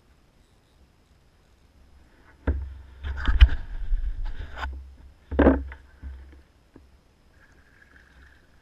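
Knocks and scraping on a plastic fishing kayak, carried through the hull to the bow-mounted camera: a sharp knock about two and a half seconds in, a couple of seconds of rumbling scrapes, another knock just past five seconds, then a few fainter bumps.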